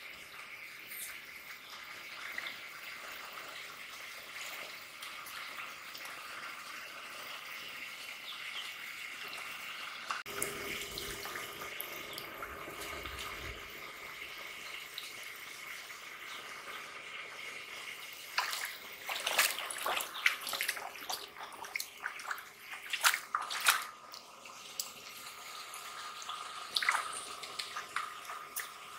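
Muddy shallow water splashing and sloshing as hands and feet move through it, with a steady light wash of water at first and sharper, louder splashes in the second half.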